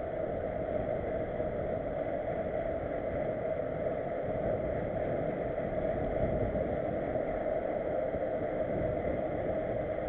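Steady rushing wind and tyre noise from a mountain bike rolling along asphalt, picked up by a camera mounted on the bike.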